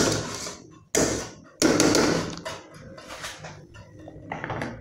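A stand mixer's wire whisk attachment knocked against the rim of the stainless steel mixing bowl to shake off Italian meringue: two sharp knocks about a second and a second and a half in, followed by fainter clatter as the attachments are handled.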